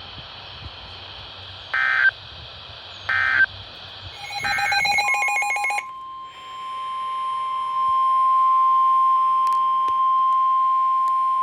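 NOAA Weather Radio emergency alert signal over a hissy radio receiver: three short digital data bursts of the SAME header, then a steady single-pitch warning alarm tone near 1 kHz (the 1050 Hz weather-radio alarm). The tone comes in about five seconds in and swells to full level, announcing a warning broadcast.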